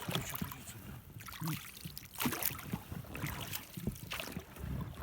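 Irregular splashes of water from fish playing and splashing at the surface, the biggest a little past two seconds in.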